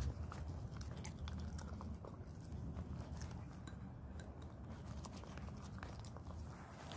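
A cocker spaniel licking and chewing at the bottom of a small ceramic bowl, with faint, irregular clicks of tongue and teeth against the bowl.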